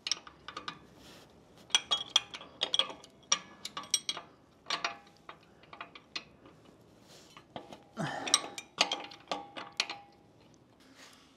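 Irregular clusters of sharp metallic clicks and clinks from a wrench on the nylock nut of a motorcycle's suspension-linkage pivot bolt, worked a small fraction of a turn at a time in a cramped spot.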